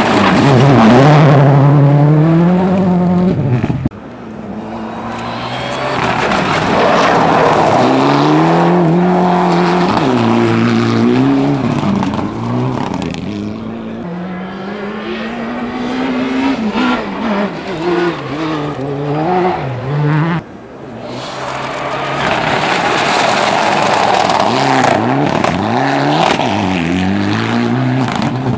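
Rally cars at full throttle on a gravel stage, engines revving up and dropping back again and again through gear changes as they pass, over the hiss of tyres and sprayed gravel. The sound cuts abruptly about four seconds in and again about twenty seconds in as one passing car gives way to the next, beginning with a Ford Focus RS WRC.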